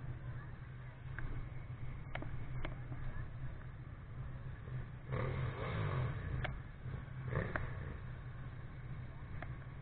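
Motorcycle engines idling with a steady low rumble, one swelling into a louder rev about five seconds in and again briefly near the end, with a few sharp clicks and knocks.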